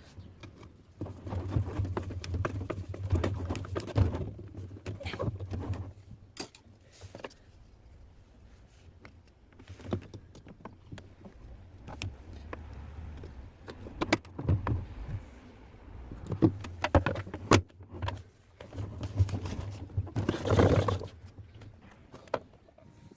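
Hitachi SF-P120FJ top-loading washing machine running in short bursts of a few seconds, a steady low motor hum with clicks and knocks, typical of the agitator cycle driven through its repaired gearbox, which had been seized.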